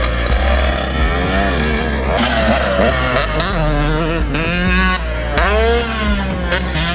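KTM 125SX two-stroke motocross engine revving hard as it is ridden around a supercross track. The pitch climbs and drops back again and again, with several sharp cuts between pulls.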